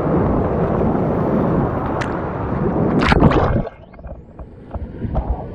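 Rushing whitewater and splashing around a kayak, with two sharp splash or paddle-strike sounds about two and three seconds in; then the sound suddenly drops away to a much quieter, muffled stretch with small ticks.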